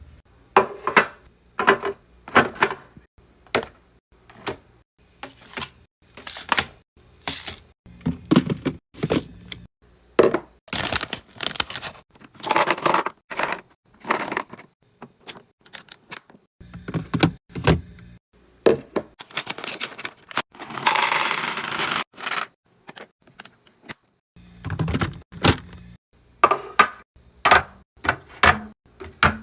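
Packaged drinks and snacks being handled and set down one after another while a mini fridge is restocked: a run of separate knocks, taps and clatters, with a longer rustle about twenty seconds in.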